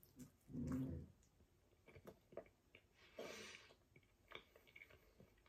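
Soft, close-up mouth sounds of a person biting into and chewing a slice of pizza, with small wet clicks and two louder moments, about half a second and three seconds in.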